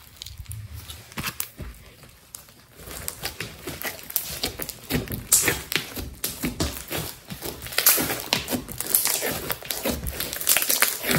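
Hands squeezing, poking and pressing a large lump of thick slime: a dense run of small crackling pops and sticky squelches. It is sparser for the first couple of seconds and busier from about three seconds in.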